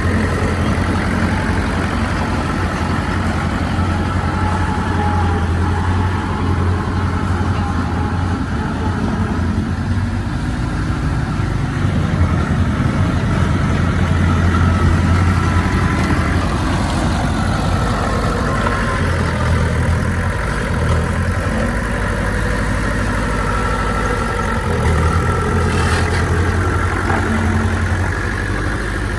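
Heavy diesel engine of earthmoving machinery running steadily, a continuous low drone that swells and eases slightly in loudness.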